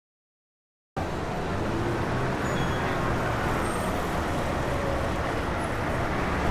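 After about a second of silence, a steady outdoor rumble of road traffic noise begins and holds even.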